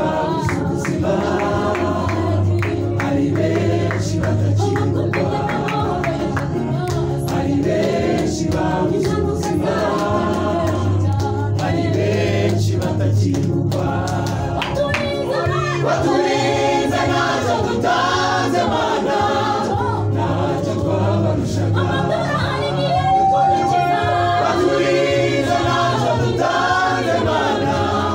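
Gospel choir of men's and women's voices singing together through microphones, over a steady low bass and a regular beat.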